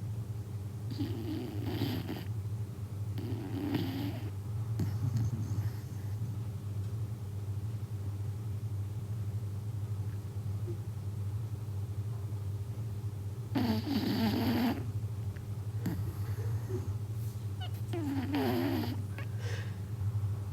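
A corgi snoring loudly in its sleep: a few separate snores spaced unevenly, with a long gap in the middle, the loudest about two-thirds of the way through. A steady low hum runs underneath.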